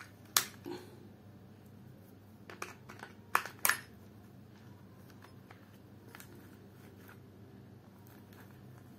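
Sharp plastic clicks and knocks as batteries are fitted into a plush toy dog's plastic battery compartment: a handful of snaps in the first four seconds, then only a few faint ticks.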